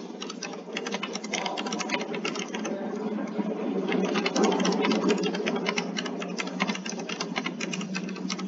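Rapid, continuous mechanical clicking over a steady low hum, heard through a video call's audio.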